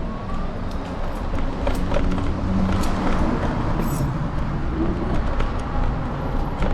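City street traffic: cars driving by, a steady rumble that grows a little louder about a second and a half in, heard from a handlebar-mounted camera on an electric scooter riding along the street.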